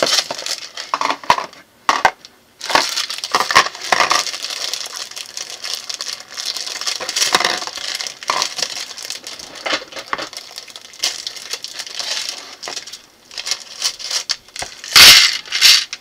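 Plastic parts bags crinkling and rustling as they are handled and opened, with small clicks and rattles of plastic building bricks and plastic bowls set down on a wooden table. A louder crinkling rush near the end as a bag of bricks is emptied into a bowl.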